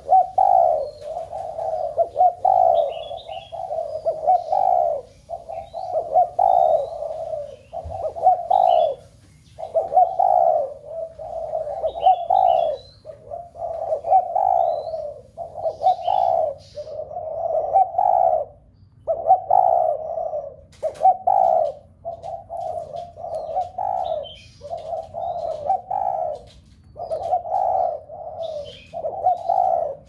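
Spotted doves cooing in the 'thúc' rousing style, one low coo phrase after another with only short breaks between them. Faint high chirps come through now and then.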